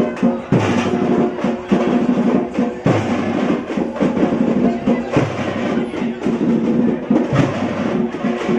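Tamate frame drumming: rapid, dense strokes in a driving rhythm, with a heavier low stroke about every two seconds.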